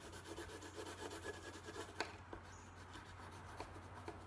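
Colored pencil scratching over watercolor-painted paper in a run of short back-and-forth strokes, faint, with one small sharp click about two seconds in.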